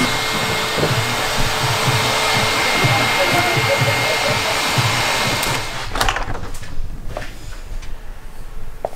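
Hand-held hair dryer blowing onto the charcoal of a chimney-cake grill to fan the coals: a steady rush of air with a thin motor whine, cutting off about six seconds in. A few sharp clicks or knocks follow.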